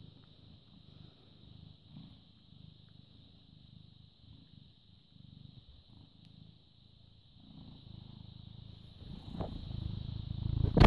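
British Shorthair cat purring steadily while being stroked, a low rhythmic rumble that grows louder over the last few seconds as the fur comes close to the microphone. A loud rubbing bump of fur against the microphone comes at the very end.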